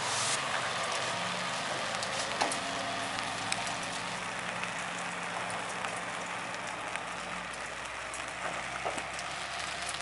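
Steady rain with scattered drops, over the faint hum of a JR West KiHa 120 single-car diesel railcar pulling away, fading out about seven and a half seconds in.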